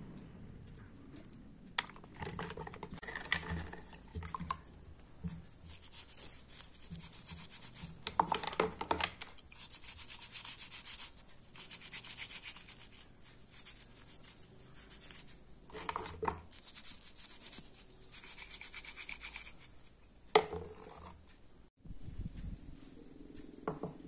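A small stiff brush scrubbing the white plastic fridge-bulb holder and its small metal parts in soapy water, in several spells of quick scratchy strokes. Near the end there is a single sharp knock.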